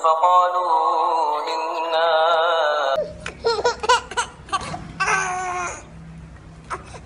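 A melodic chanting voice with long, ornamented notes stops abruptly about three seconds in. A baby's short, high squeals and laughing cries follow, with a longer cry near the end.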